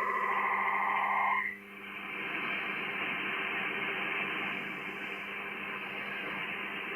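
Shortwave receiver audio on the 80 m band: an unidentified data transmission of several warbling tones cuts off abruptly about a second and a half in. Steady band static hiss follows.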